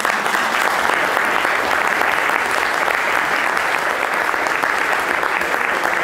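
Audience in a lecture theatre applauding: many hands clapping in a dense, steady patter.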